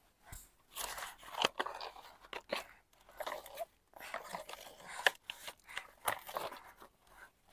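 Plastic toy backhoe loader pushed and dug through dry sand by hand, making irregular short crunching scrapes and small clicks.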